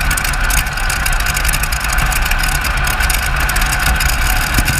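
Rolls-Royce Griffon V12 aero-engine power plant of a heavy modified pulling tractor idling steadily after the pull, heard close up from on board.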